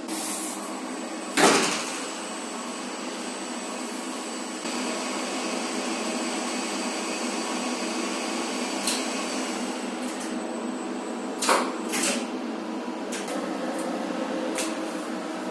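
Lift machinery in a motor room running with a steady hum and a faint high whine, growing a little louder just under five seconds in. A few sharp clicks or knocks sound over it, the loudest about one and a half seconds in.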